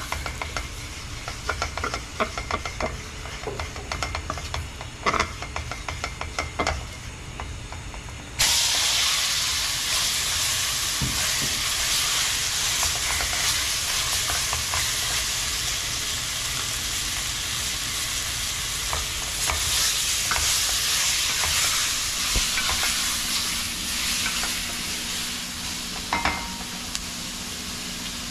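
Spoon scraping and clicking in a pot of hot oil and turmeric. About eight seconds in, a loud sizzle starts suddenly as the seasoned chicken goes into the hot oil, and it keeps frying steadily; one clink of the spoon comes near the end.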